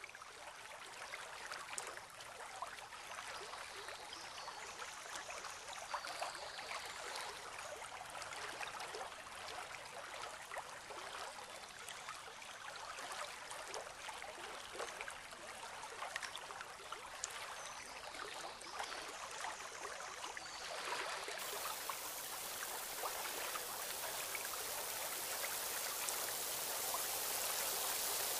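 Small waterfall pouring into a rock pool: a steady rushing hiss with scattered splash and drip clicks, growing gradually louder.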